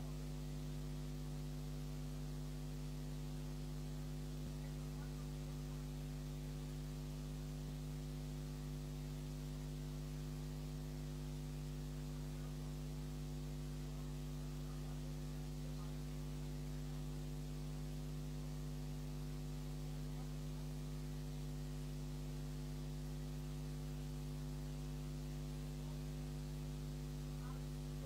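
Steady low electrical mains hum: a constant, unchanging buzz with no other sound over it.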